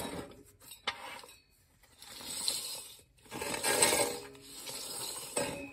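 Light metallic clinks and scraping as steel planetary gear parts are worked into place by hand inside a 700R4 automatic transmission case, with a sharp click about a second in.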